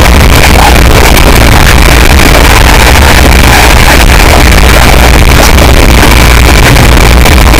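Deliberately blown-out audio, clipped at full volume into a constant wall of distortion with a heavy steady low rumble, music the main recognisable element underneath.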